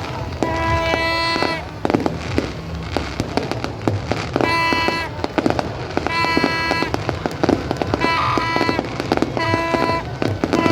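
Fireworks display: a steady run of rapid bangs and crackling pops, with music of long held notes playing over it.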